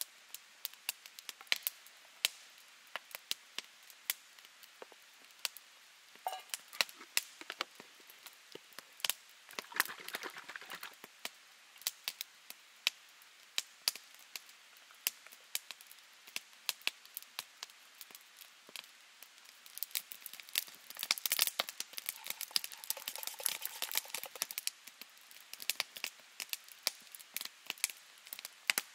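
Wood fire crackling, with irregular sharp pops and snaps throughout, mixed with close handling of a steel camp cup and plastic containers. The clicking gets busier and denser for a few seconds about two-thirds of the way through.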